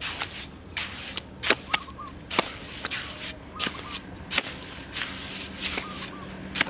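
Repeated scraping strokes of a hand tool working a sand and cement mortar mix on the ground, as water is worked in a little at a time; about ten strokes, some sharper than others.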